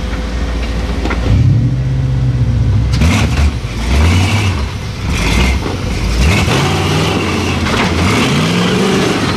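Flat-fender Jeep rock crawler's engine revving in repeated bursts, its pitch rising and falling several times as it climbs over a large rock. A few sharp knocks come about three and five seconds in.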